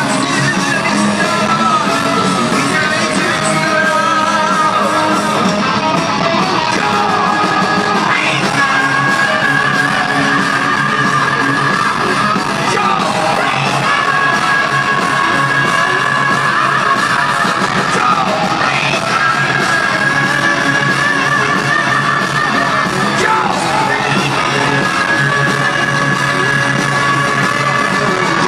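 Heavy metal band playing live, with distorted electric guitar, drums and a high, yelled singing voice, heard from the crowd in a large hall. Long held notes run through much of it.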